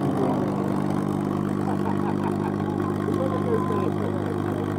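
P-51 Mustang's V-12 Merlin engine idling steadily on the ground, with its propeller turning.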